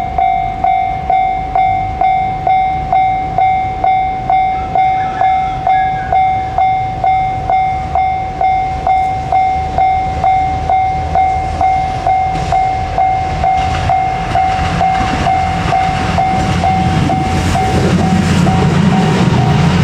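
Japanese level-crossing warning bell ringing, about one and a half strokes a second. From about twelve seconds in, a train approaches, and its rumble and the clatter of its wheels over the rail joints grow louder toward the end.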